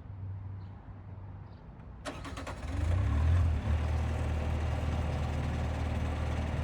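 Bobcat T595 tracked skid steer's diesel engine running with a steady low hum, growing louder about three seconds in and holding steady after.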